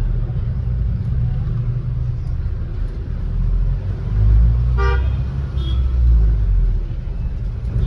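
Steady low rumble of a car moving slowly in traffic, with a short vehicle horn toot about five seconds in.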